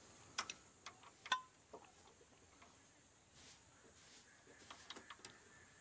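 A few faint metallic clicks and taps of hand tools on the diesel engine's valve rocker as the tappet lock nut is tightened after setting the clearance; the loudest, just over a second in, rings briefly.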